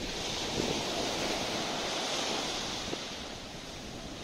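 Small waves breaking and washing up a sandy beach, the surf swelling at the start and easing off a little after about three seconds.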